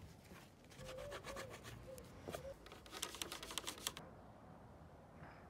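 A cloth rubbing and scrubbing a plastic keyboard housing: faint scratchy wiping with a quick run of clicks about three seconds in. It stops abruptly at about four seconds.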